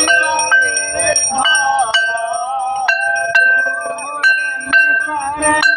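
Hindu evening aarti hymn being sung, with a bell struck again and again through it, roughly once or twice a second, each strike ringing on.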